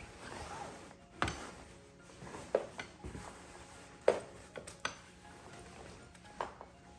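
Parts of a Monbebe Flex Deluxe play yard being handled during assembly: a series of sharp clicks and knocks from its plastic and metal frame pieces, the loudest about a second in and about four seconds in.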